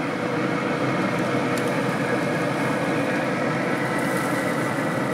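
Traeger pellet smoker's fan running with a steady whir.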